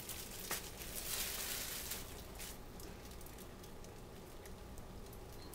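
Yellow mustard squirting from a plastic squeeze bottle onto a raw rack of pork ribs: faint squishing and spluttering with a few soft clicks, mostly in the first half.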